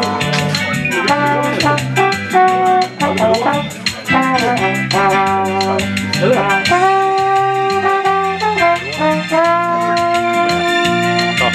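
Slide trombone playing a melodic solo over a backing track with a steady drum beat and bass line. The notes are short and moving at first, then longer held notes from about two-thirds of the way in.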